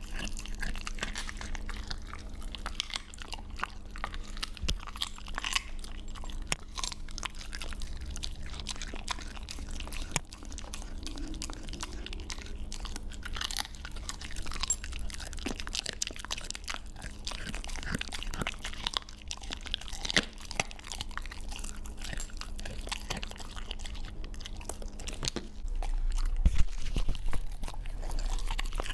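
Siberian husky chewing raw chicken, with irregular wet chewing and crunching sounds.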